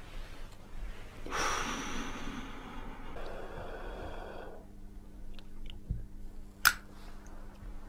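A long, breathy drag and exhale of cigarette smoke. About halfway through, a steady low hum comes in, and near the end there is one sharp click.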